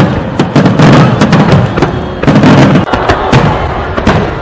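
Aerial fireworks display: a dense volley of sharp bangs and crackles, several a second, over deep booms that come in clumps. It eases off slightly near the end.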